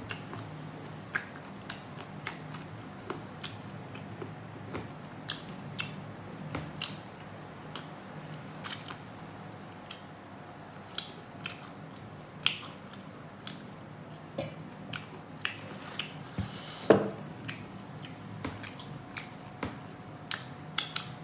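Close-miked eating sounds: chewing with wet lip and mouth smacks, heard as sharp irregular clicks about one or two a second, with one louder smack about 17 seconds in.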